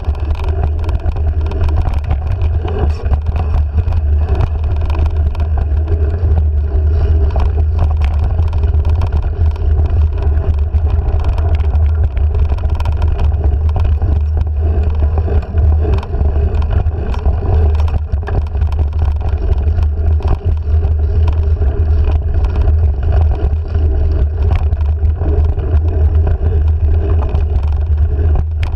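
Wind buffeting the microphone of a handlebar-mounted action camera as a mountain bike rides a dirt singletrack: a loud, steady low rumble, with frequent small rattles and clicks from the bike jolting over the trail.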